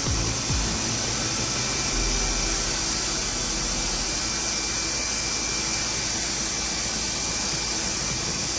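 CNC router running with a steady high whir and hiss from its spindle, with no change in level.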